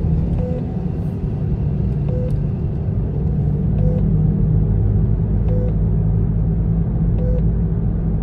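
Steady low road rumble of a car driving, heard from inside the cabin, with background music whose short note repeats about every second and a half.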